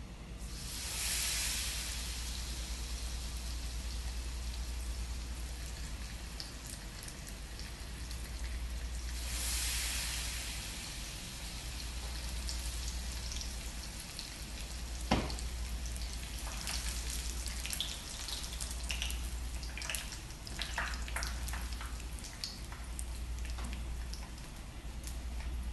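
Batter-coated perilla leaves deep-frying in a small pan of hot oil: a steady sizzle that swells loudly about a second in and again about nine seconds in, with crackling and popping through the second half. A single sharp click sounds about fifteen seconds in.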